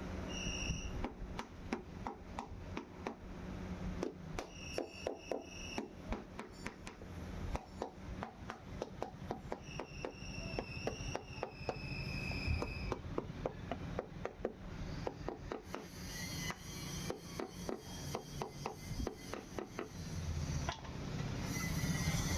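Hand-tool work on an old lead-acid battery cell: a run of quick knocks and scrapes, several a second. A high, steady squeak-like tone comes in three times, briefly.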